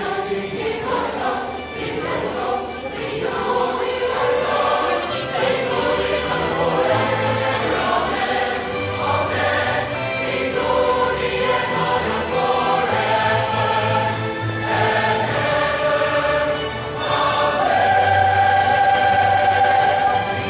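Mixed choir of men's and women's voices singing in harmony, moving through held chords. The loudest chord is sustained for about three seconds near the end.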